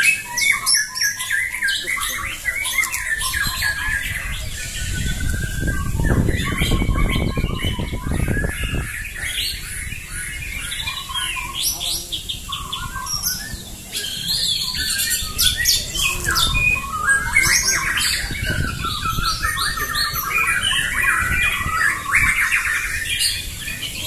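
Several white-rumped shamas (murai batu) singing at once, a dense, overlapping chorus of whistled phrases and trills from birds competing in a contest. A low rumble comes in for a few seconds near the middle.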